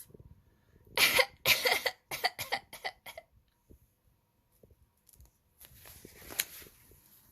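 A woman acting out a small creature's cough: two strong coughs about a second in, then a quick run of shorter, quieter coughs. A soft rustle with a sharp click follows near the end.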